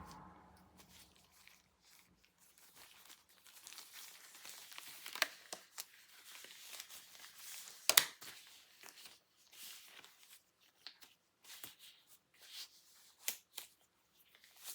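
Things being handled and tidied by hand: crinkling and rustling with scattered sharp knocks and clicks, the loudest knock about eight seconds in.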